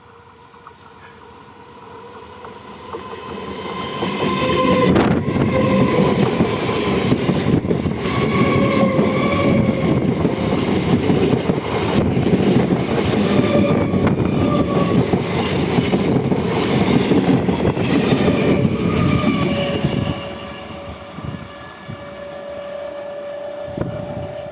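An Indian Railways electric train passes close by at speed. It rises out of the distance and rumbles loudly with rapid wheel clatter over the rail joints. It drops off sharply about twenty seconds in, as the last coach goes by.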